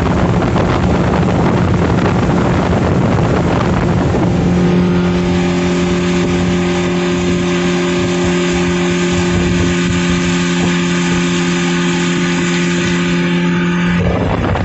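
Speedboat engine running at a steady cruising speed, with wind and water rushing past. From about four seconds in the engine's steady hum comes through more clearly over the rush, until it changes abruptly near the end.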